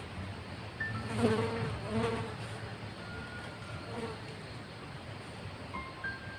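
A flying insect buzzing close by, swelling twice, about a second in and again near two seconds, with the pitch wavering as it moves.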